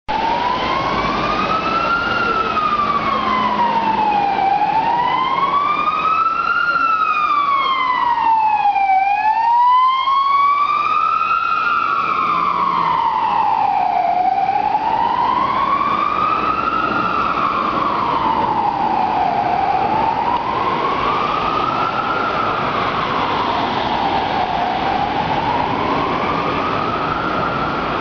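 Police car siren wailing, its pitch gliding slowly up and down about once every five seconds, over city traffic noise.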